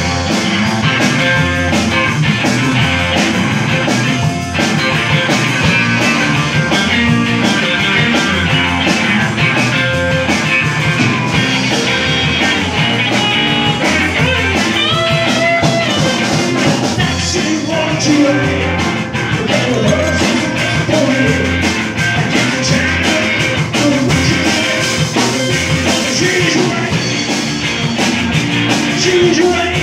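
Live rock band playing at full volume: electric guitars, electric bass and drum kit together.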